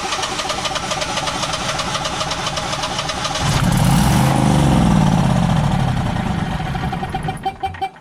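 Generac Guardian 16 kW standby generator's engine cranking on its starter with rapid even strokes, catching about three and a half seconds in and running louder for a few seconds, then slowing and dying near the end. It is being shut off rather than running out of gas, which the owner puts down to the controller's 'no RPM sense' fault.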